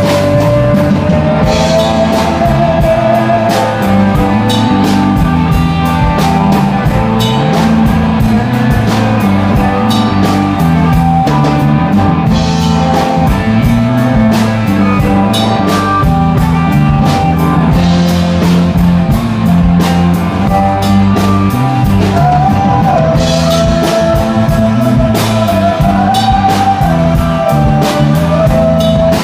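Rock band playing an instrumental stretch of a slow rock song: drum kit keeping a steady beat under bass and guitars, with a held melody line that bends in pitch, mostly in the second half.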